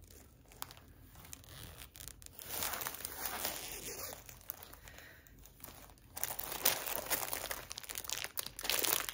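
Plastic packaging crinkling and rustling as packets are handled, in two spells of a few seconds each, with a few light clicks.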